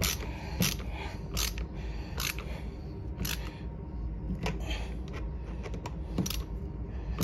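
Deadbolt lock hardware being worked by hand, giving sharp mechanical clicks at uneven intervals, about one a second.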